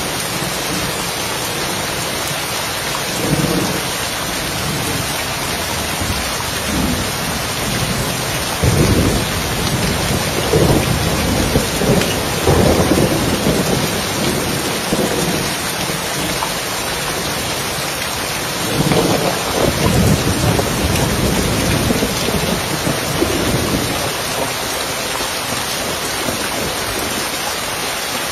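Steady rain falling on a roof, with thunder rolling in long low rumbles. The two loudest rolls come a little before and a little after the middle.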